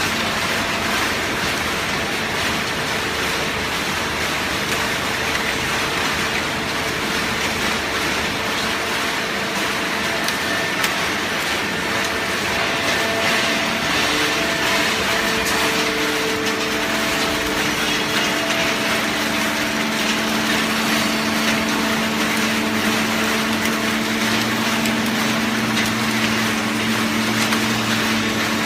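Automatic hydraulic cardboard baler running: a steady loud machine noise with a hum. The hum shifts to different tones partway through, with a deeper tone joining near the end.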